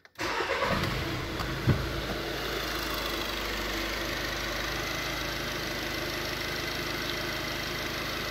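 VW 1.6 TDI (CAYC) four-cylinder common-rail diesel starting and settling into a steady idle. There is a single low thump about a second and a half in.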